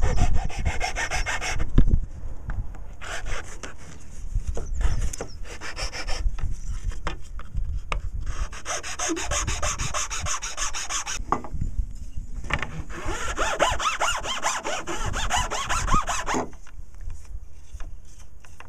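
Half-round file rasping across a wooden pendulum rod, scalloping out its sides to fit the gimbal. The filing comes in several runs of quick back-and-forth strokes with short pauses between them, and stops about sixteen seconds in.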